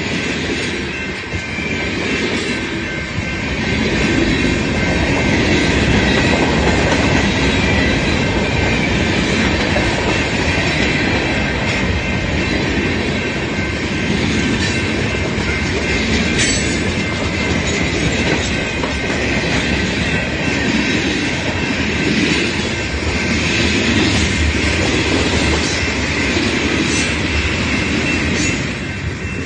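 Freight train cars (covered hoppers, boxcars and tank cars) rolling past: steady clatter of steel wheels on the rails, with a thin high wheel squeal over it and an occasional sharp clank.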